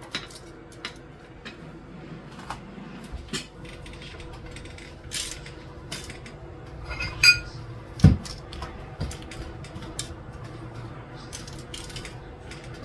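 Kitchen utensils and dishes clinking and tapping now and then, with a ringing metal clink about seven seconds in and a dull knock just after it.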